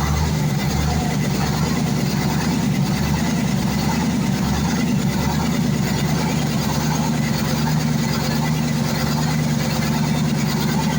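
Freshly overhauled YaMZ-238 V8 diesel engine running at a steady speed.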